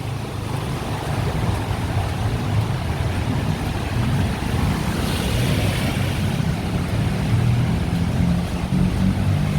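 Traffic driving through floodwater on a city road: a steady engine hum with tyres pushing and sloshing through standing water. A brief rush of splashing about five seconds in.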